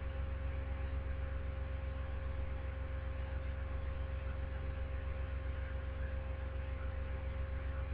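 Steady electrical hum, a low buzz with a few higher constant tones over faint hiss, unchanging throughout.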